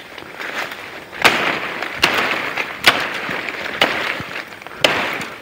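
Wood being chopped by hand with a blade: five sharp strikes about a second apart, each followed by a brief rustle of leaves and brush.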